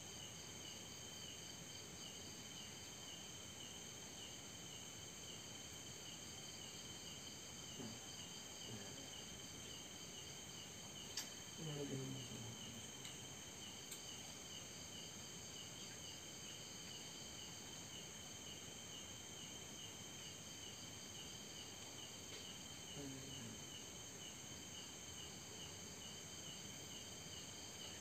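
Steady night-time chorus of crickets and other insects, with a repeating chirp. A few faint, brief low sounds fall in pitch about a third of the way in and again later, and there is one small click.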